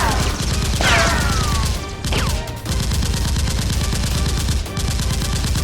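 Rapid automatic gunfire sound effects dubbed over a staged toy-gun fight, with falling swishes about a second and two seconds in.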